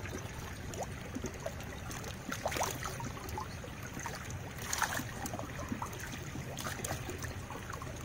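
Pond water trickling and lapping, with a few light splashes about two and a half and five seconds in as a plastic scoop is dipped in the surface.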